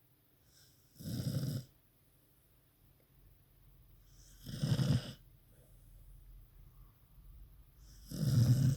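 A dog snoring: three loud snores, each under a second long and about three and a half seconds apart, with low-level sound between them.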